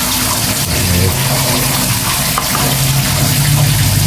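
Tap water running steadily into a sink, with a low hum underneath.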